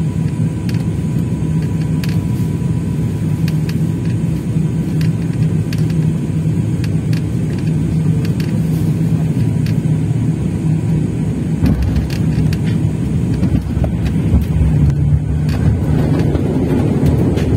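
Airliner cabin noise during landing: a steady low rumble of engines and airflow, with a heavier, deeper rumble coming in about twelve seconds in as the plane comes onto the runway, growing a little louder near the end.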